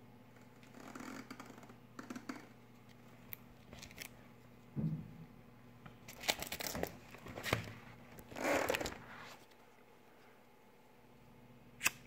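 Scattered rustling and light knocks of a fibreglass fireproof bag being handled against a wooden cabinet, then one sharp click near the end as a BIC lighter is flicked.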